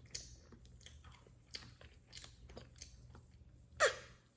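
A person chewing a soft stewed honey date with its pit still inside, with faint, irregular wet mouth clicks and smacks. One louder, brief mouth sound comes near the end.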